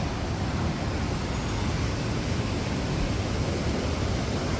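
Steady rumbling hiss of wind buffeting the microphone, with no clear single event.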